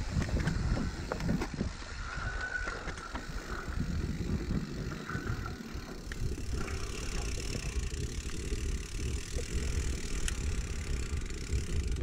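Mountain bike descending a rough dirt trail: tyres rumbling over dirt and roots and the bike rattling with many irregular knocks, with wind buffeting the microphone.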